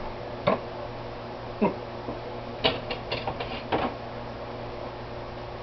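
Scissors set down on a countertop with a click, then a quick run of small clicks and knocks about three seconds in, over a faint steady hum.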